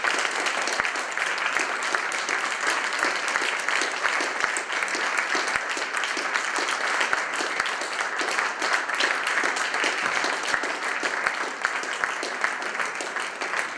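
Concert audience applauding, many hands clapping at a steady level.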